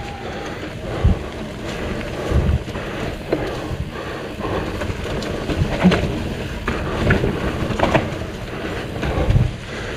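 Wind buffeting the microphone over the rumble of mountain bike tyres rolling on a dirt trail, with scattered knocks and rattles from the bike over bumps.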